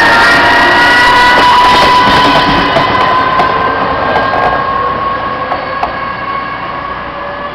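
ČD class 854 diesel railcar accelerating away with its passenger train, its engine whine made of several high tones that rise slowly in pitch. The sound is loud for the first couple of seconds, then fades steadily as the train draws off.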